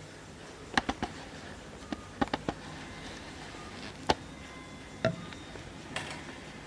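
A string of irregular clicks and light knocks, some in quick clusters of two or three, of a vintage mantel clock being handled. There is no chime and no steady ticking.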